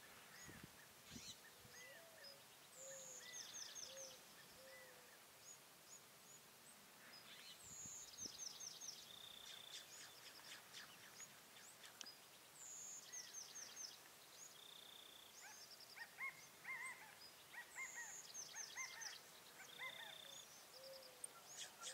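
Faint birdsong outdoors: a high, quick phrase of descending notes ending on a short held note, repeated about every five seconds, with other soft chirps between.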